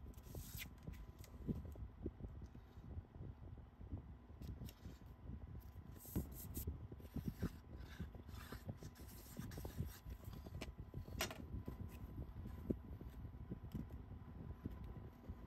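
Faint handling of cardstock and patterned paper on a craft mat: paper sliding and rubbing, with scattered light taps and scrapes.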